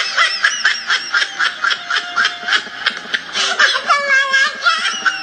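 High-pitched laughter in a fast run of short bursts, about four to five a second.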